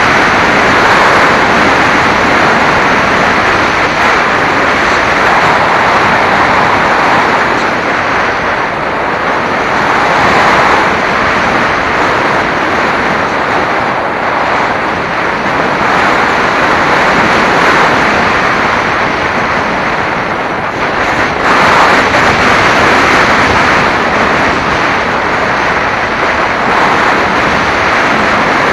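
Wind rushing over the microphone of a camera on board a Phoenix 1600 RC model glider in flight. It is a loud, steady rush that swells and eases every few seconds.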